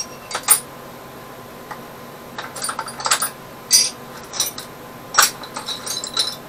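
Small metal tools and drill bits clinking and rattling as they are rummaged through in a workbench drawer, in scattered clusters of sharp clicks.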